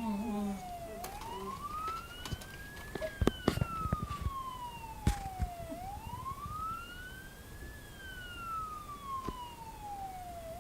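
Police-style siren wailing: a clean tone whose pitch rises over about two seconds and falls over about three, over and over. A few sharp knocks sound about three to five seconds in.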